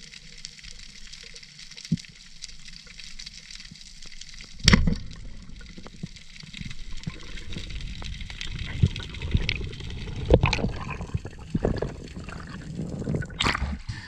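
Underwater water noise of a freediver swimming, with gurgling and sloshing. A sharp knock about five seconds in is the loudest sound, and a second knock comes near the end.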